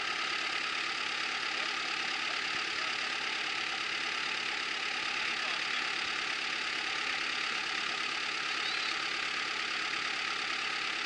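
A 4x4 off-road vehicle's engine idling steadily.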